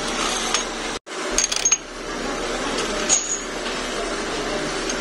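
Metal clinks and taps from handling a steel bar and chuck key at a lathe's four-jaw chuck, a few sharp clicks with a short high ring, over a steady workshop noise that drops out briefly about a second in.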